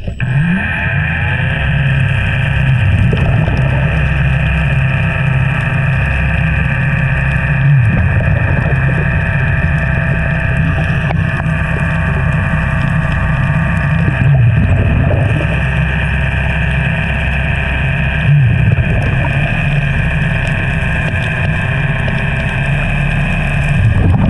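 A steady motor drone with several fixed tones, like a boat engine running, swelling briefly a few times.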